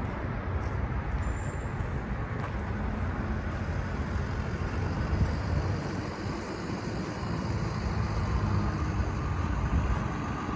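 Steady, low outdoor rumble with no distinct events.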